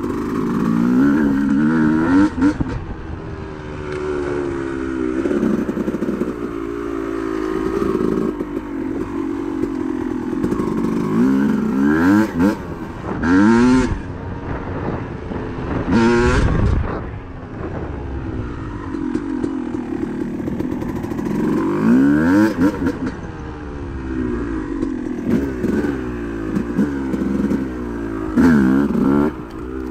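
Dirt bike engine running under way, its pitch rising and falling again and again as the throttle is opened and closed, with several sharp revs in the middle.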